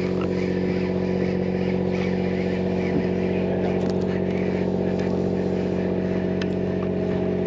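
Fishing charter boat's inboard engine running steadily at a constant pitch, a continuous even hum, with a few faint clicks over it.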